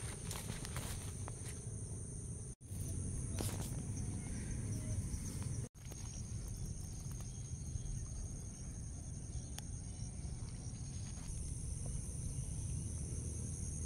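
Steady high-pitched insect droning over a low rumble. The sound cuts out completely for an instant twice, about two and a half and five and a half seconds in.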